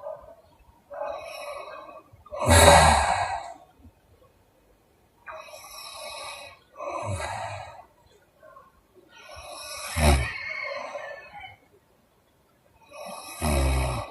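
Woman snoring in her sleep: rattling snores alternating with breathy exhales, about one breath every three to four seconds, the loudest snore about two and a half seconds in.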